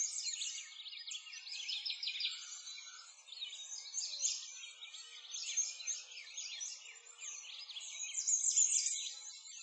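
A dense chorus of many small birds chirping and singing all at once, high-pitched and continuous, rising and falling a little in strength.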